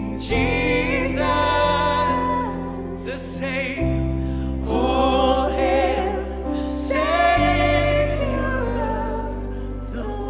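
Live worship music: women's voices singing with vibrato over sustained keyboard chords and a deep bass, the chord changing about every three and a half seconds.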